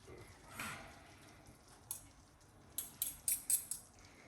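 A few light, sharp clicks and taps of a utensil against a plate while food is served, several in quick succession near the end.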